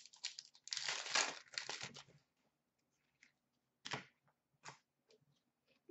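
Paper-foil wrapper of a hockey card pack being torn open and crinkled, with a rustle lasting about a second and a half. It is followed by a couple of short clicks as the cards are handled.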